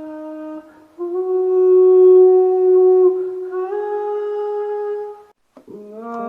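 A slow melody of long held notes, each sliding up or down to a new pitch, with a short break about five seconds in before the next note.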